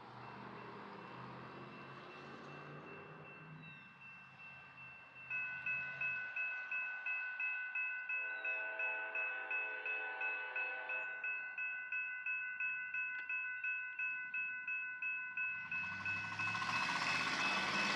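Railroad crossing bell ringing steadily, about two to three strikes a second, starting about five seconds in. A lower horn tone joins for about three seconds. Near the end the noise of an approaching train swells loud.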